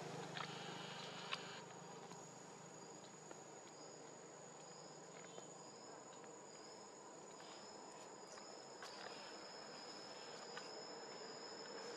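Faint, steady, high-pitched chorus of insects such as crickets or cicadas, with a few soft clicks.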